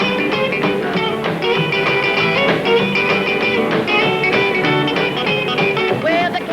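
Rockabilly band playing an instrumental break, a guitar taking the lead over the rhythm backing.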